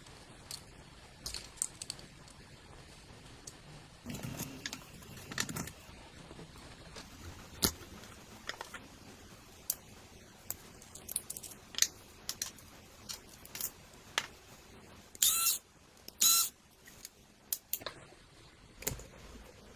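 Scattered clicks, taps and light clatter of small hard parts being handled on a workbench. Two short scraping bursts come about three quarters of the way through.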